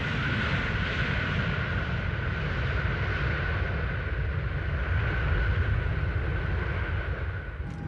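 Boeing 747 rolling fast down the runway under hard braking, its tires smoking, in a brake test with the anti-skid system disabled. Its turbofan engines make a steady high whine over a deep rumble.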